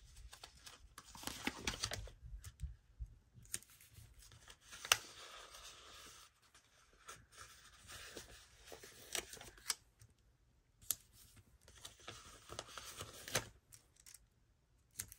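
Paper stickers being peeled off a sticker-book backing sheet and pressed onto a planner page: faint papery rustles with scattered light ticks and taps, the sharpest tick about five seconds in.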